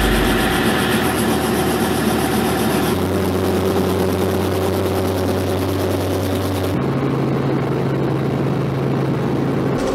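Robinson R44 helicopter's piston engine running steadily on the ground, heard from inside the cabin. The sound changes abruptly about three and seven seconds in.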